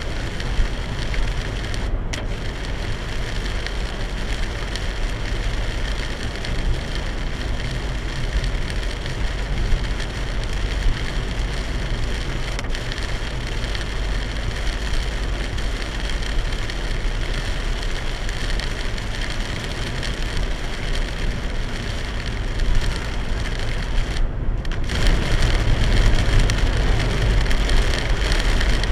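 Torrential rain drumming on a moving car, with tyre and road noise, heard from inside the cabin through a dashcam microphone. The hiss briefly drops out twice, about two seconds in and again near the end, and grows heavier in the last few seconds.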